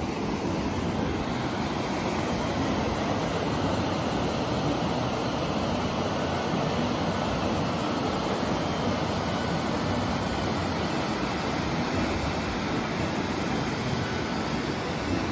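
Rocky mountain stream rushing steadily through rapids.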